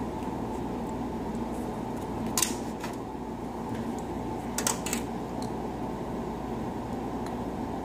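Steady low room hum, with a few sharp light clicks about two and a half seconds in and again near five seconds, as a small circuit board and a soldering iron are handled and set in place.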